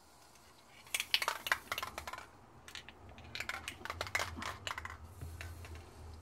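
An aerosol can of gloss spray paint being shaken, its mixing ball rattling in two bursts of quick clicks, about a second in and again from about three and a half seconds. The can is barely spraying, and its owner suspects it has run out of propellant.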